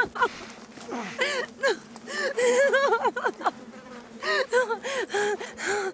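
A woman sobbing and whimpering in short, high-pitched, wavering cries, with sharp gasping breaths between them.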